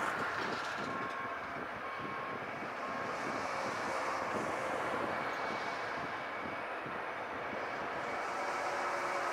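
Construction-site ambience: a steady, noisy rumble of machinery, with a faint beep about once a second over the first few seconds.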